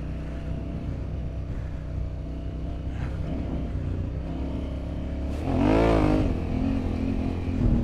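Honda Africa Twin 1100's parallel-twin engine running under way on a dirt track, with a brief rise and fall in revs about five and a half seconds in.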